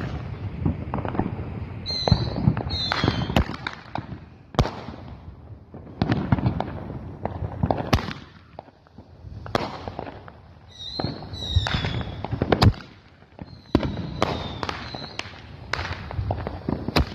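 Fireworks going off one after another: a string of sharp bangs and crackles. Shrill whistles falling in pitch come twice about two to three seconds in, and again around eleven to twelve seconds.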